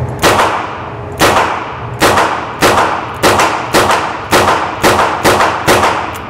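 A Ruger GP100 .22 LR revolver fired double action, a string of about ten shots, spaced about a second apart at first and coming faster toward the end. Each shot rings out in the reverberant indoor range.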